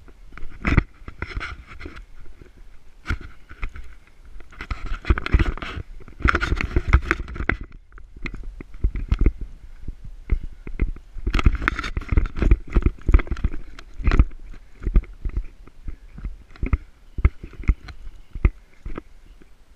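Footsteps crunching through dry grass and brush, with twigs and leaves scraping against a body-worn camera: irregular crunches and scrapes, thickest about five to seven seconds in and again from about eleven to fourteen seconds, over a low rumble of handling.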